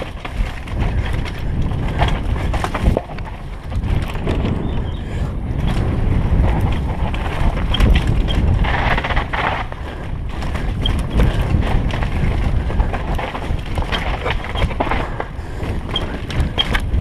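Downhill mountain bike running fast down a dirt trail: wind rushing over a helmet camera's microphone and tyres rumbling over dirt and rocks, with sharp knocks from the bike over bumps, one about three seconds in and another near the end.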